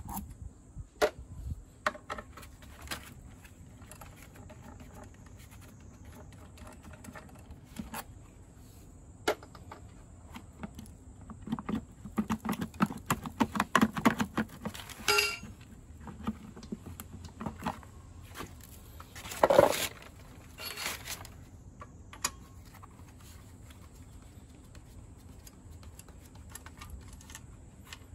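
Hand-tool work on a scooter's transmission cover: a T-handle socket wrench clinking as bolts are loosened, with loose bolts and the plastic cover rattling and scraping. A busier stretch of rattling comes around the middle, and one louder clatter about two-thirds of the way through.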